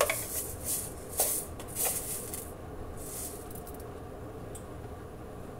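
A spoon scooping mustard seeds from a container: a few light clinks and short rustling scrapes over the first two or three seconds, then only a faint steady hum.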